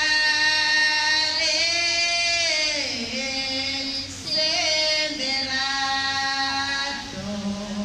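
Women singing a Jatra geet, a Sarna festival song, in long held notes that slide up and down in pitch, with a short break about four seconds in.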